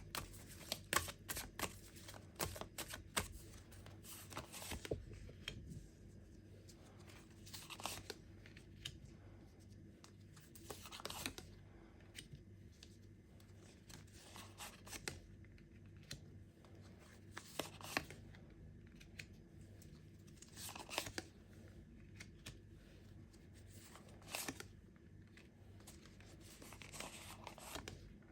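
Tarot cards being shuffled by hand, a quick run of papery clicks for the first few seconds, then cards handled one at a time with a soft swish or slap every few seconds.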